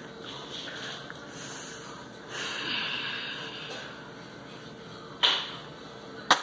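Someone eating crunchy Lay's Poppables potato chips, chewing with breathing through the nose; a louder breath about two and a half seconds in, and two sharp crunches near the end.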